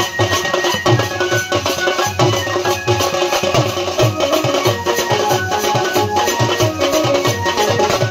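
Small folk band playing a Chhattisgarhi song: a large bass drum keeps a steady low beat about three strokes a second, with a stick-played side drum and clashing metal hand cymbals over it and a held melody line above.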